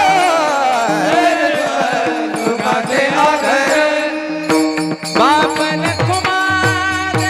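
Devotional bhajan music: a sliding, wavering melody over a held drone, then from about halfway a steady pakhawaj rhythm with deep, downward-sliding bass strokes comes in under held notes.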